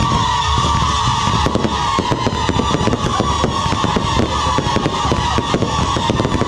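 Fireworks display: dense crackling and popping from spark-shooting fireworks, over a sustained whistle that slowly drops in pitch.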